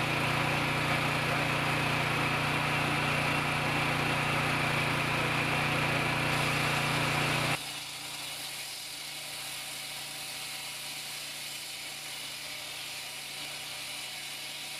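Petrol engine of a walk-behind concrete saw running steadily. About halfway through the sound drops suddenly to a quieter, still steady running level.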